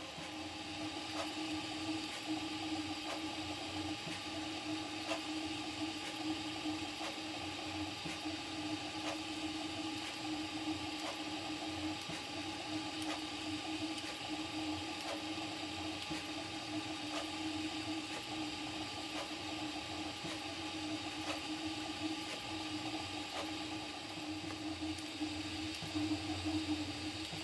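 Prusa MK4 3D printer running a Benchy print at 120 mm/s: a steady hum from its motors and cooling fans, with faint regular ticks.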